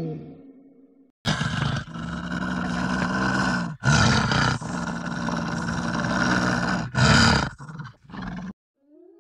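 Wolf growling and snarling: a loud, rough growl in several long stretches broken by short pauses, starting about a second in and stopping shortly before the end. The last of a howl fades out at the very start.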